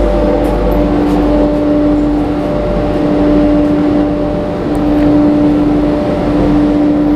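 An electric workshop machine running steadily: a constant hum with a fainter higher hum above it, over an even rushing noise.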